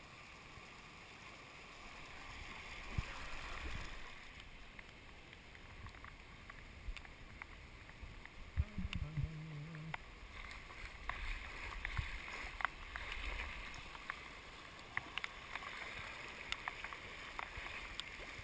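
Shallow rocky creek rapids rushing steadily over rocks, with frequent small sharp splashes and clicks from about halfway through as the tube rides through the whitewater.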